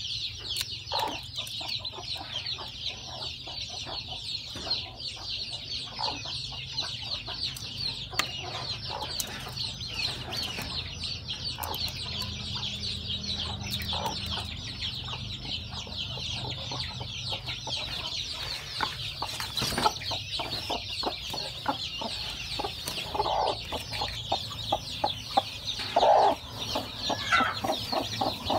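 Many newly hatched chicks peeping rapidly and without pause, a dense high-pitched chorus. A hen clucks a few times, louder in the second half.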